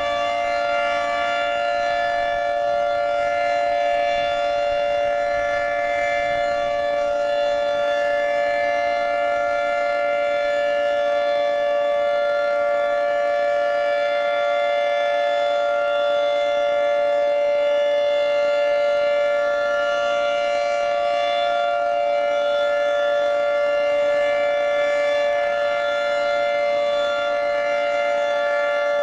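Federal Signal 2T22 dual-tone electromechanical warning siren sounding a steady alert, two tones at once held at a constant pitch as a dissonant chord, during a siren test.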